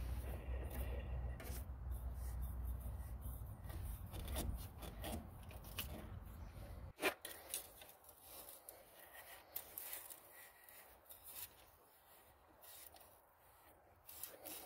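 Hands turning a spin-on filter onto its mount on a tractor engine, then snugging it with a band-type filter wrench: rubbing and scraping of fingers and the wrench strap on the filter canister, with small clicks. A low rumble underneath stops suddenly at a sharp click about halfway through.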